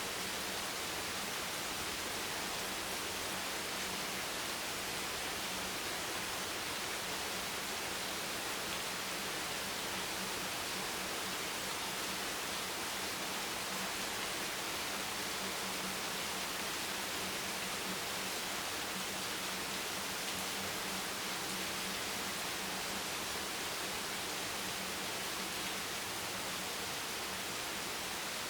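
Heavy rain hammering steadily on a beach bench, an even hiss with no separate drops standing out.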